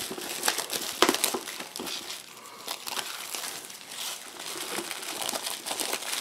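Cellophane shrink wrap being peeled off a cardboard box and crumpled in the hands: a dense crinkling crackle, loudest about a second in.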